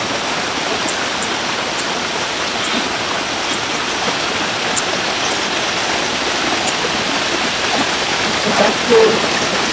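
Water rushing along a stone channel and pouring from pipe spouts into it, a steady even rush. A brief louder sound stands out near the end.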